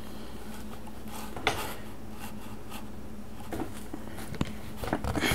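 Quiet room tone: a steady low electrical hum and faint hiss, broken by a few faint clicks, one about a second and a half in and several small ones near the end.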